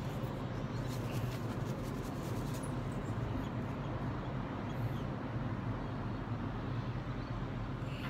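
Steady low outdoor background hum with a few faint clicks in the first couple of seconds; no loud cockatoo calls stand out.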